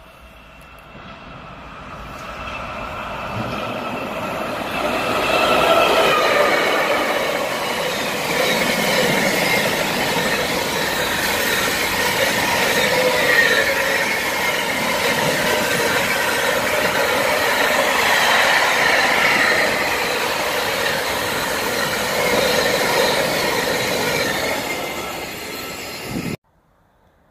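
Freight train passing through at speed, its wagon wheels rumbling and squealing on the rails. The sound builds over the first few seconds as it approaches, holds loud, then cuts off suddenly near the end.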